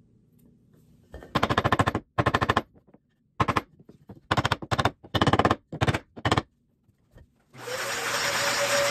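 A claw hammer striking a scrap block of wood to drive a tight, stuck plastic desk grommet down into its hole, in several quick runs of rapid blows. Near the end an upright vacuum cleaner starts up and runs with a steady hum.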